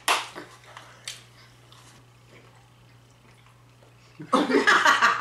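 Faint chewing of a big mouthful of shredded bubblegum over a low steady hum, then a loud muffled vocal outburst through the mouthful of gum about four seconds in.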